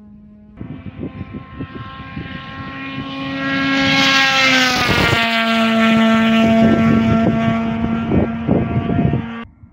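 Rally car speeding past on a gravel stage: its engine grows louder on approach, drops in pitch as it goes by, then holds a high-revving note, with scattered crackles of gravel under the tyres. The sound starts abruptly half a second in and cuts off suddenly near the end.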